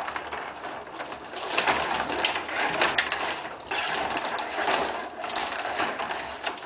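Rod hockey game in play: a dense, uneven clatter of metal rods sliding and spinning in the board, with the players and puck clicking and knocking against it.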